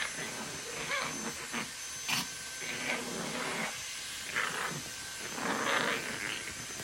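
Two small dogs play-fighting, growling in short irregular rough bursts, the longest about five and a half seconds in.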